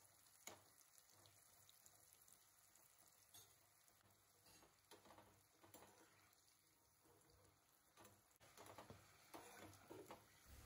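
Very faint sizzling and crackling of cornflour-coated chickpeas deep-frying in hot oil. A few light clicks come from a slotted steel skimmer stirring them, with a little more activity near the end.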